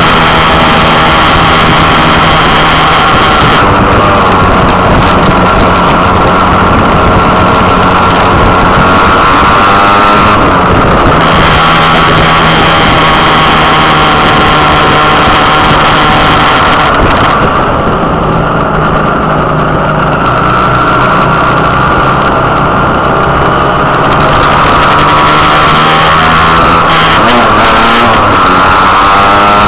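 Motorcycle engine heard from on the moving bike, loud and close, with wind rush over the microphone. The engine note sweeps up and down with throttle and gear changes, about ten seconds in and again near the end.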